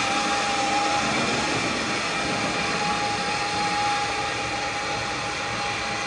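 Narrow-gauge steam locomotive standing in steam, giving a steady hiss of escaping steam with a thin steady high tone running through it.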